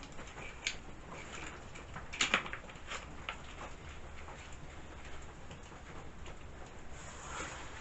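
A few light clicks and knocks of a chainsaw's plastic housing being handled and turned over, the loudest a short cluster a little over two seconds in.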